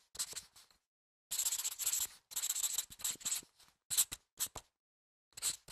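Pencil scratching on paper in a series of short bursts of strokes, with brief silences between them, as short straight lines are drawn.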